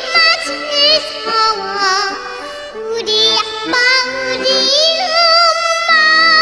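A young girl singing in Korean with a wide, fast vibrato over instrumental accompaniment, breaking into a long held, wavering note about five seconds in.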